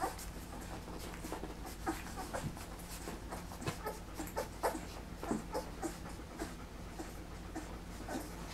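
Three-week-old puppies nursing from their mother: irregular wet suckling clicks and smacks, several a second, with small squeaks and whimpers.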